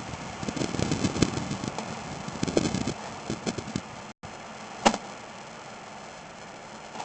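Steady hiss with irregular knocks and clicks from sewer video inspection equipment. The sound drops out for an instant about four seconds in, and one sharp click follows a moment later.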